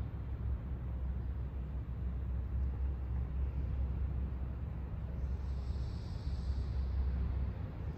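Steady low rumble of background noise, with a faint hiss rising for a second or two after about five seconds.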